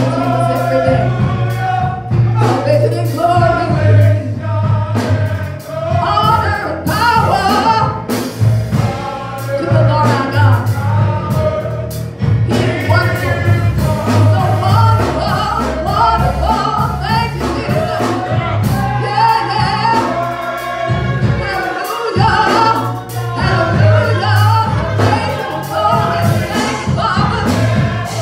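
Church choir singing a gospel song with instrumental accompaniment: many voices over a steady low bass line and drum strokes.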